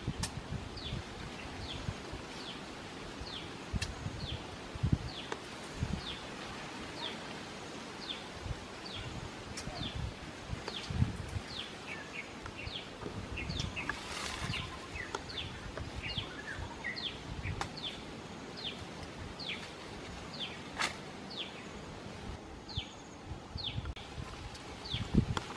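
A bird repeats a short, high, falling whistle over and over at an even pace, about three notes every two seconds. Leaves rustle and soft knocks come now and then underneath.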